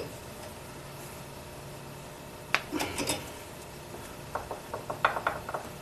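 A few light metallic clicks and taps of a wrench working the carrier-bearing adjusters of a Ford 9-inch differential, a couple about halfway through and a quick cluster near the end, over a faint steady low hum.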